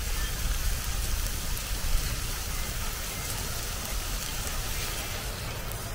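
T-bone steaks sizzling in a cast-iron pan over a wood fire: a steady crackling hiss, with a low rumble underneath.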